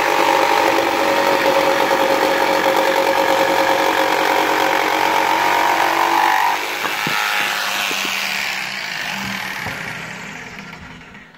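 Mafell P1cc corded jigsaw cutting a curve through 45 mm H3 treated pine, a steady, dense buzz. About six and a half seconds in the sound drops, with a few knocks, and it dies away near the end as the cut finishes.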